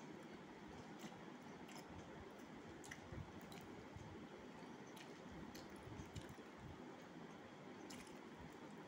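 A person chewing a mouthful of food, faint, with scattered soft wet mouth clicks over a low steady hiss.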